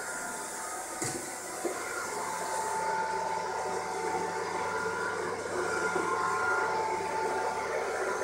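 Robot vacuum cleaner running on the floor: a steady motor whine, with two light knocks about a second in.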